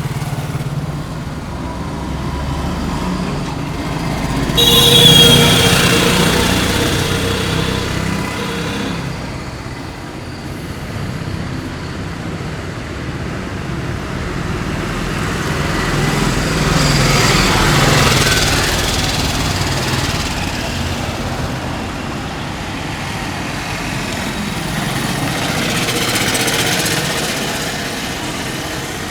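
Road traffic going by, the noise swelling and fading as vehicles pass. On the loudest pass, about five seconds in, a horn sounds for a few seconds.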